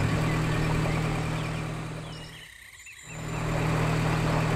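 Cartoon background soundtrack: a steady low hum with a few faint high chirps over it. It fades out briefly about two and a half seconds in, then returns.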